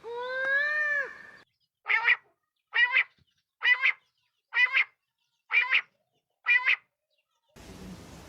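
Bird calls: one long call that rises and then falls in pitch. Then come six short calls, about one a second.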